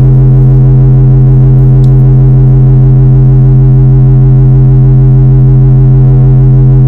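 Loud sustained synthesizer drone: one low steady tone with overtones above it, held without change.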